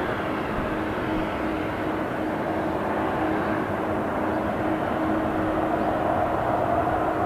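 Jet airliner engines at an airport, heard from a distance as an Airbus A330-200 flares and touches down: a steady rushing hum with one constant low tone, swelling slightly near the end.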